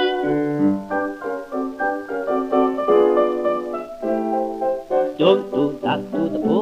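Instrumental break on a 1928 novelty record: the band plays held notes, then about five seconds in a sliding, wavering melody line begins.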